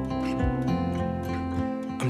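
Background pop music with strummed guitar and a steady beat, instrumental with no singing.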